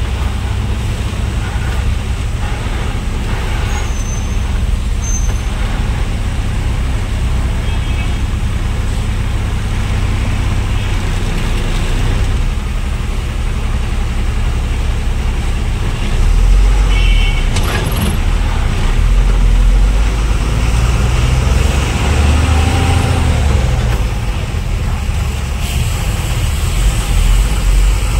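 Truck's diesel engine and road noise heard from inside the cab as the loaded truck pulls away and gathers speed, a steady low rumble that grows louder about halfway through.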